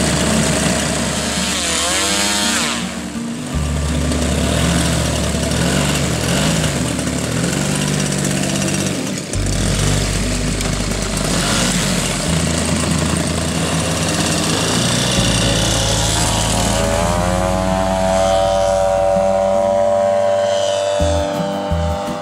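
Large radio-controlled biplane's propeller engine running, with a brief rev about two seconds in. Near the end it throttles up for takeoff, its pitch rising as the model climbs away.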